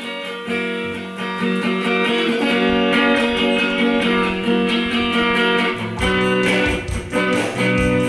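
Electric guitar playing a slow song's introduction: ringing chords, picked more busily after a few seconds. A low bass line joins near the end.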